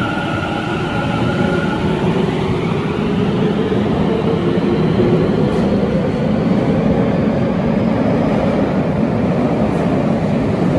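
Hanzomon Line subway train pulling out of the station and speeding up past the platform. Its motor whine rises in pitch over the first few seconds, over a steady, loud rumble of wheels on rail.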